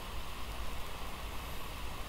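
Steady background hiss with a low hum underneath; no distinct events.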